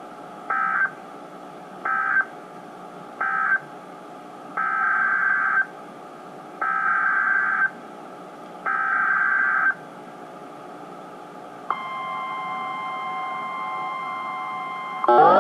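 NOAA Weather Radio Emergency Alert System data bursts: three short end-of-message bursts, then three longer header bursts for the next alert, each a buzzy electronic screech about a second apart. These are followed about two-thirds of the way in by the steady high warning alarm tone. A rising siren-like sweep starts at the very end.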